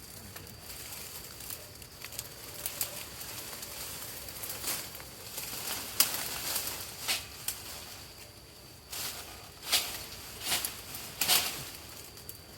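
Tall grass and brush rustling and crackling as someone pushes through it by hand and foot, with scattered sharp snaps of stems, more of them in the second half.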